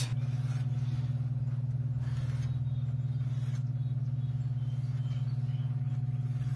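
A steady low hum runs unchanged throughout, with a few faint handling sounds in the middle.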